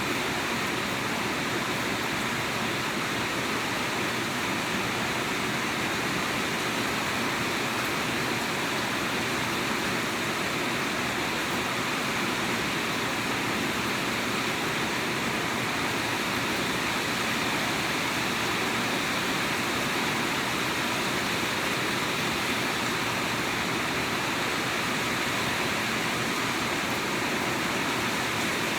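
Steady rain falling, an even unbroken hiss of water.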